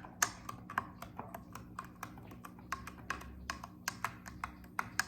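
A spoon stirring sugar into sparkling water in a drinking glass, clinking against the glass in quick, irregular taps, about four or five a second, then stopping.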